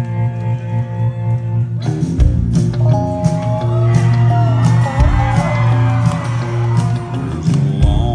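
Live country band playing an instrumental intro in a hall: a guitar riff alone at first, then drums and bass come in about two seconds in and the full band plays on.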